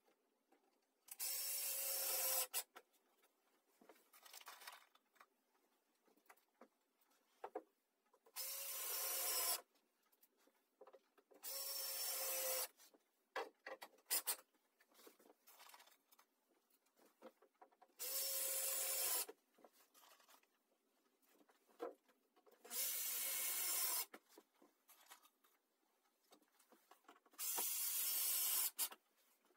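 Cordless drill driving screws through a thin fibreboard sheet into a wooden pallet frame: six short runs of the motor, each about a second and a half, with small handling clicks between them.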